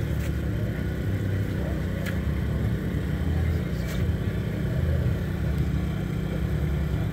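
An engine running steadily: a low, even rumble.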